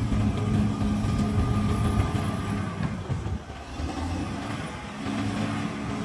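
CAT D6R bulldozer's diesel engine running with a steady low drone over rough mechanical noise, plus a thin high whine that fades out about halfway. The engine note drops off for a couple of seconds past the middle and comes back up near the end.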